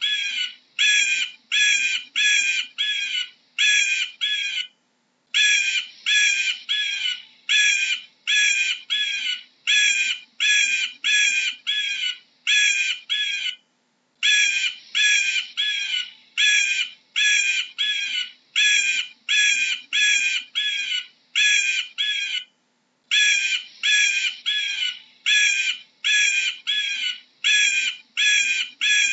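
Eagle calling: a steady series of shrill, sharp notes, about two a second, in runs of several seconds broken by three brief pauses.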